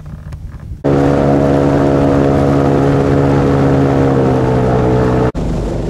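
Airboat engine and propeller running at speed: a loud, steady drone with a strong pitched hum, which comes in suddenly about a second in after a low idle. It cuts off abruptly near the end, giving way to a rougher, lower rumble.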